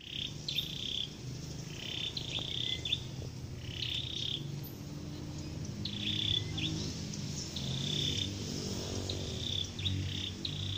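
Animal calls from the trees: short high-pitched calls of a steady pitch, each under a second, repeating about every one to two seconds over a continuous low drone.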